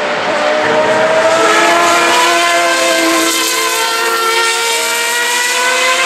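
Several open-wheel single-seater race cars passing on track, their engines running at high revs. Overlapping engine notes rise slowly in pitch as the cars accelerate.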